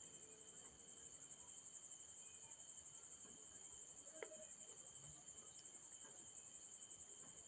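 Near silence, with crickets trilling faintly and steadily and one faint tick about four seconds in.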